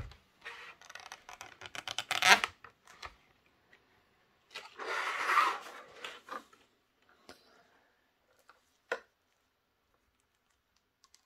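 Clear plastic display box and packaging of a model locomotive being opened: quick clicks and crinkling in the first few seconds, a longer rustle of plastic about five seconds in, and a single sharp click about nine seconds in.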